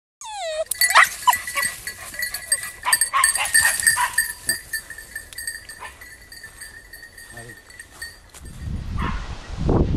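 Animal cries in brush: a falling call right at the start, then a run of sharp clicks and shorter calls over steady high tones, with a low rumble of handling noise building near the end.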